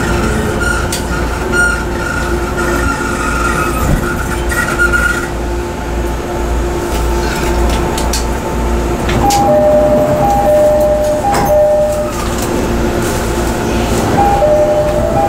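Interior running sound of a JR East E217-series electric train's MT73 motor car with a steady low rumble, slowing to a stop. High whining tones pulse during the first few seconds. From about nine seconds in, a two-note electronic tone alternates over and over.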